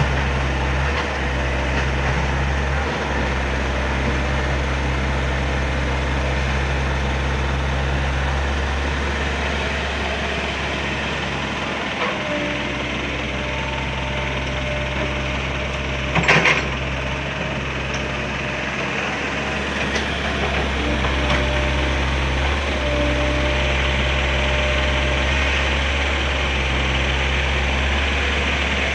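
Excavator's diesel engine running steadily under load, its pitch dipping and recovering a little, with a single sharp knock about two thirds of the way through.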